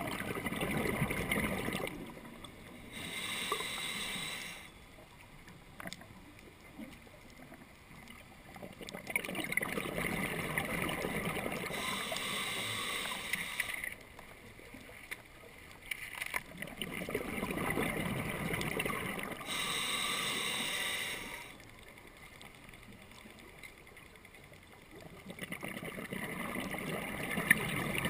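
Scuba diver breathing through a regulator underwater: exhaled bubbles rumbling and gurgling past the mask in four bursts, with the hiss of the regulator's inhale between them, in a slow cycle of roughly eight seconds per breath.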